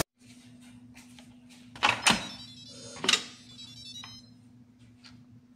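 Stainless-steel Instant Pot lid being twisted open and lifted off the pot: two brief metallic squeaks or scrapes about two and three seconds in, over a faint steady low hum.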